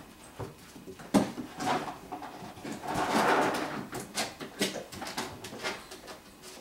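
Five-week-old golden retriever puppies playing on plastic play equipment: scattered knocks and clatters of paws and small bodies against hollow plastic, with a sharp knock about a second in and a longer scraping noise around the middle.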